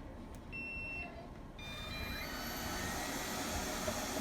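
Robot vacuum cleaner beeping once, then a short run of rising tones as its motor starts and runs with a steady whir.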